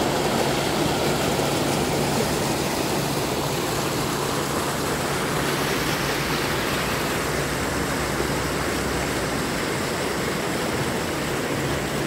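Shallow stream water rushing and splashing over rock ledges and a concrete edge: a steady, even rush of running water.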